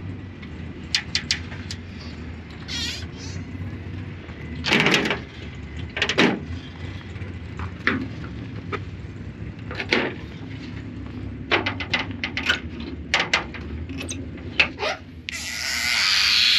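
A run of scattered knocks and clicks over a steady low hum, with a loud hiss starting near the end and carrying on.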